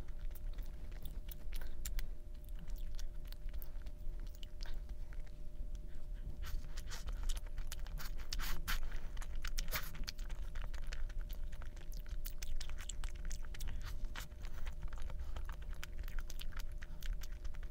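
A person chewing and biting food close to the microphone: a dense, irregular run of small crunchy, wet clicks.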